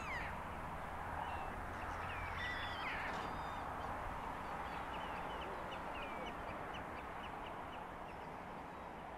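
Outdoor ambience: a steady wash of noise with birds calling over it, two falling calls in the first three seconds, then a run of short repeated chirps, about two a second, in the second half. A low rumble sits under the first three seconds.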